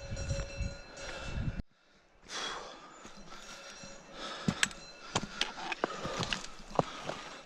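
Footsteps on a stony mountain trail, with irregular sharp clicks and taps like trekking poles striking rock. Before them, for under two seconds, a low rumble with a few steady held tones cuts off abruptly.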